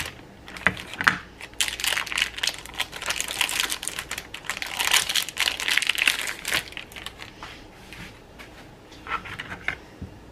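Plastic cheese wrapper crinkling and crackling as it is handled, in a dense run of small crackles that dies down after about seven seconds, with a few light clicks near the end.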